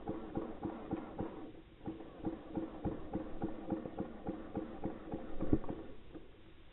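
Footsteps running at an even pace, about three strides a second, with a louder final step about five and a half seconds in, after which they stop.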